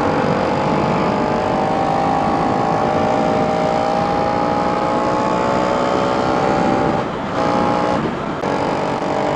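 KTM 250 Duke's single-cylinder engine pulling hard under acceleration, its pitch climbing steadily for about seven seconds, with two short breaks near the end as it shifts up, over a rushing noise of riding.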